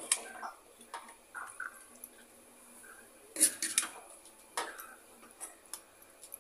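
A metal spoon clinking and scraping against a steel pot and dishes as sabji is served, in a series of sharp clatters, the loudest cluster about three and a half seconds in.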